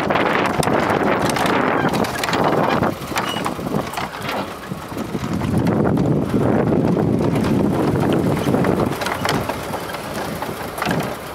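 Wind buffeting the microphone in the open back of a moving small truck, over the truck's running engine and scattered knocks and rattles from its wooden bed on a rough dirt track. The rush swells and dips, easing about three seconds in and again near the end.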